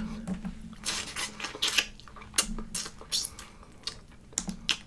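Eating a Dungeness crab: irregular sharp clicks and crackles of hard crab shell being picked apart and chewed.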